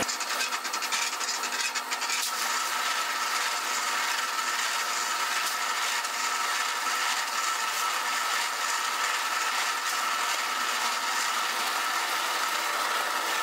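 Electric concrete mixer running steadily, its drum turning.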